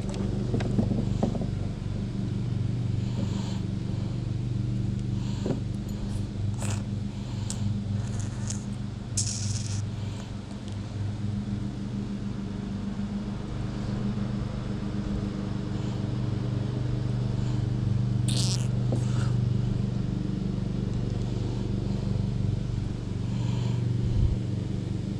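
A steady low motor hum, with a few short clicks and scrapes as fishing line is tied onto a lure.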